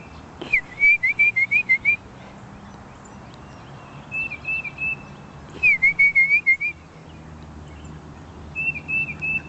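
Back-and-forth cardinal-style whistling between a person and a northern cardinal. There are two loud runs of quick, repeated down-slurred whistles, and each is followed a few seconds later by a softer, wavering whistled phrase.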